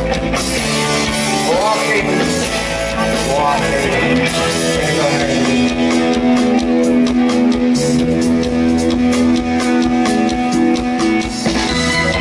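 Live band music through a concert PA, recorded from the crowd: a steady groove with long held notes, and a couple of sliding notes about two and three seconds in.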